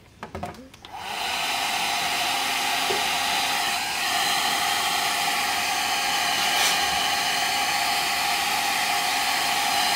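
Small handheld Nova hair dryer switched on about a second in, then running steadily, blowing hot air on a phone's back panel to loosen it for opening. A few short clicks come just before it starts.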